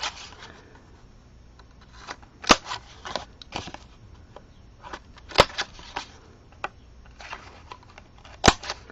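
Handheld corner-rounder punch snapping through the corners of a cardstock panel: three sharp clicks about three seconds apart, with light paper handling and small clicks between as the card is turned to the next corner.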